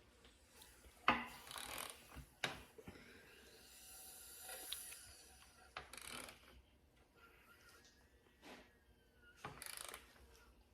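Hand ratchet clicking in short irregular spells with sharp metallic clicks as the Subaru FA20 engine's crankshaft is turned by hand to bring its timing marks into line.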